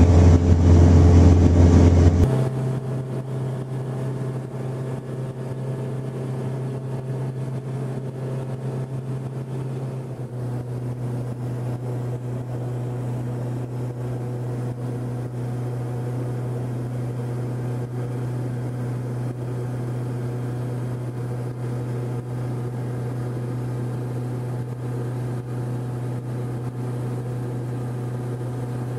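Cessna 162 Skycatcher's four-cylinder Continental O-200 engine and propeller droning steadily in flight, heard inside the cabin. It is louder for the first two seconds, then drops abruptly to a steady, even drone.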